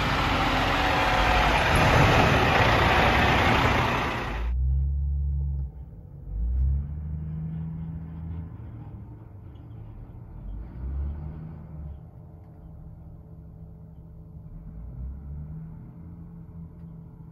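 Loaded Kenworth cab-over log truck's diesel engine running loud as the truck moves off. About four and a half seconds in the sound cuts off abruptly to a much quieter low rumble with irregular thumps.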